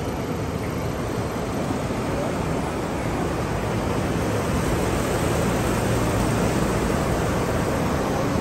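Steady, loud rushing noise of moving air, even and unbroken, with no voices or music over it.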